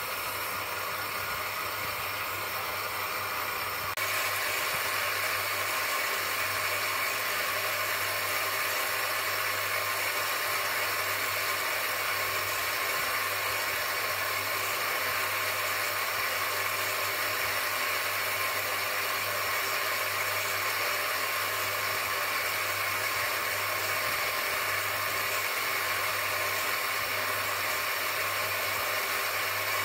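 Bench grinder running with a steady low hum while a small nagasui (Klawing jade) stone is held against its spinning abrasive wheel, giving a continuous grinding hiss. The sound gets louder about four seconds in.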